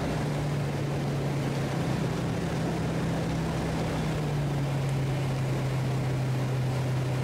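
Engine and propeller of a Just Aircraft SuperSTOL XL bush plane, a steady drone heard from inside the cockpit during the climb-out, its pitch settling slightly lower about four seconds in.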